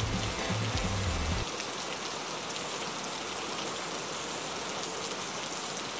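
Heavy rain falling, a steady even hiss. For the first second and a half it comes with a low rumble on the microphone, which then stops sharply, leaving the rain alone.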